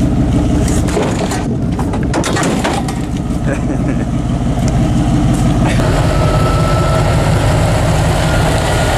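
Vehicle engine running with a steady low drone, heard from inside the cab while driving. There are a few clicks in the first seconds, and the engine note shifts about six seconds in.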